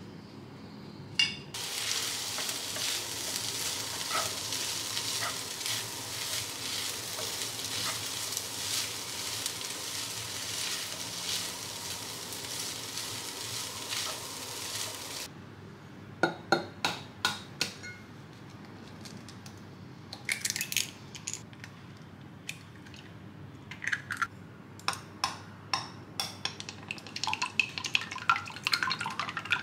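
Food sizzling and hissing in a frying pan as a wooden spatula stirs it, cutting off about halfway through. Then scattered clinks and taps of utensils, and near the end rapid clicking of chopsticks beating eggs in a glass measuring jug.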